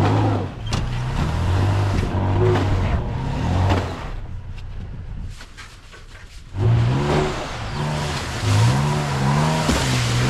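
Pickup truck engine revving in surges, its pitch rising and falling, as the truck sits stuck in snow after sliding off the road. The revving dies down about four seconds in and picks up again a couple of seconds later.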